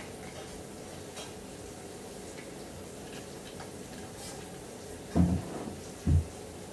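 Two dull, low thumps about a second apart near the end, over a steady low hum with a few faint ticks.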